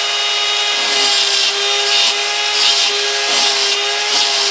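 Small hand-held rotary grinder running with a steady whine, its diamond bit grinding the exhaust port of a McCulloch Timber Bear chainsaw cylinder (soft aluminum with a chrome-plated bore). A scratchy grinding sound comes up about six times as the bit makes light in-and-out strokes.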